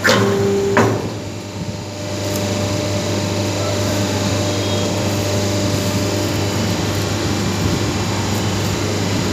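Hydraulic paper plate machine's pump and motor running with a steady hum, with two knocks in the first second as the control lever is worked. About two seconds in the hum gets louder and holds steady while the lever is pulled forward to drive the dies and press the plates.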